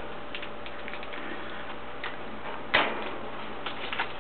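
Parakeets pecking at and cracking food: faint scattered ticks and clicks, with one sharper crack about three seconds in.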